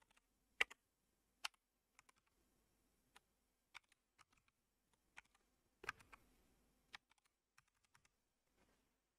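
Faint computer keyboard typing: single keystrokes at an irregular pace, a few louder than the rest, as a time is keyed in digit by digit.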